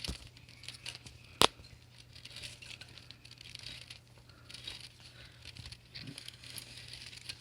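Scattered rustling and scraping handling noises as the LED wheel light's wire cord is wound around a bicycle wheel, with one sharp click about a second and a half in.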